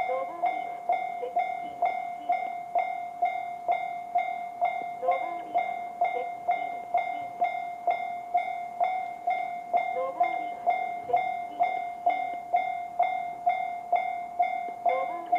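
Electronic warning bell of a Japanese railway level crossing, the JR standard crossing sound: one fixed, bell-like ding repeating about twice a second.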